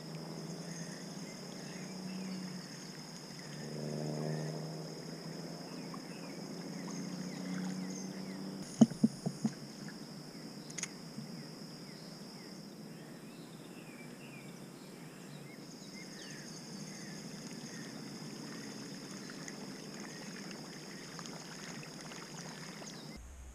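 Outdoor river ambience heard from a fishing kayak: a steady high-pitched insect drone with faint bird chirps and a low hum. A few sharp knocks come about nine seconds in.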